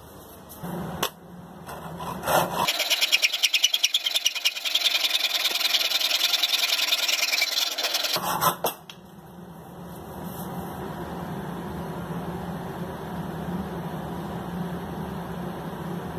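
A few clacks as the bar clamps are set. Then a Japanese pull saw cuts through a hardwood block in quick rhythmic strokes for about five seconds, stopping about eight seconds in. A steady low hum follows to the end.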